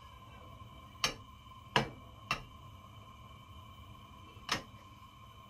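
Stainless steel wok heating empty but for a little oil over a gas flame, the metal giving sharp ticks as it warms, four of them at uneven intervals, over a faint steady hum.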